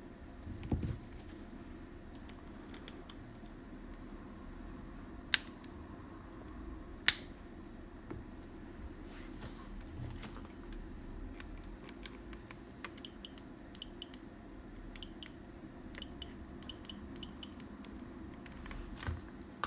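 Small plastic clicks and snaps from handling a car key fob: two sharp clicks about five and seven seconds in, with scattered faint ticks between them over a low steady hum.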